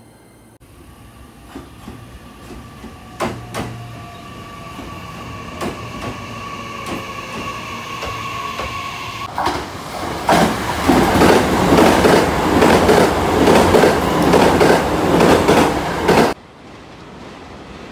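JR West 227 series electric commuter train: a faint steady motor whine with scattered sharp clicks of wheels over rail joints, then from about ten seconds a loud rumble and clatter of the train running close by. The rumble cuts off suddenly near the end.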